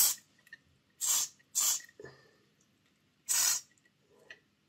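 Aerosol contact cleaner sprayed through a thin extension straw in four short hissing bursts, worked onto the stiff, gunked-up axles of a model locomotive's wheel chassis to free them.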